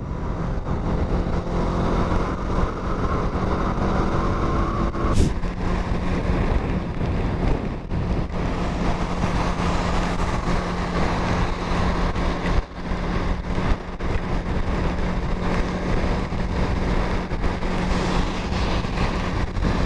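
Motorcycle engine running at a steady cruise, under a constant rush of wind noise over the microphone while riding in the rain.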